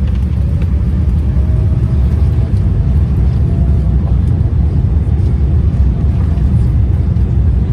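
Aeroplane taking off: a loud, steady low rumble that holds even throughout.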